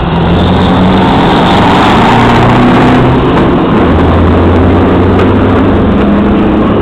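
Heavy truck tractor unit's diesel engine running loud under hard throttle, a steady deep drone whose pitch drops a little about halfway through, then holds.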